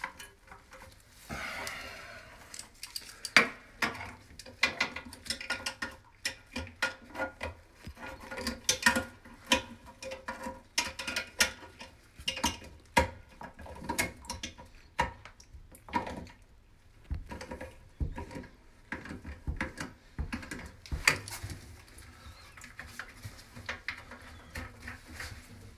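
Irregular clicks, taps and knocks of plastic fill-valve parts and tools against the inside of a porcelain Toto toilet tank as a hand works the fill valve loose, in quick clusters with short pauses.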